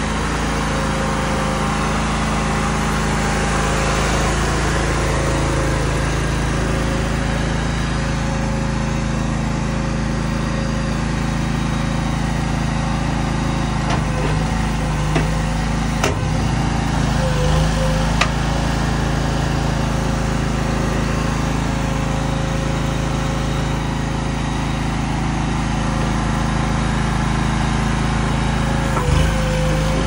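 Small engine of a Chinese-made stand-on mini track loader running steadily at constant speed as the machine moves. A few sharp clicks come around the middle, and a knock comes near the end.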